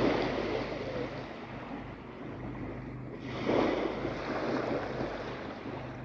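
Rushing noise of waves washing on the shore with wind on the microphone, swelling twice, near the start and about three and a half seconds in.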